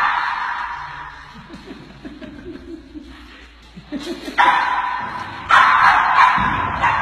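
Small terrier barking at tigers behind glass, loud at first and fading away, then starting again about four and a half seconds in and going on louder. In the lull a person chuckles quietly.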